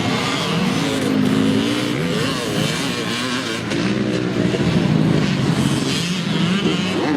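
Motocross dirt bike engines revving up and down on the track, several bikes at once, their pitch rising and falling as the riders work the throttle.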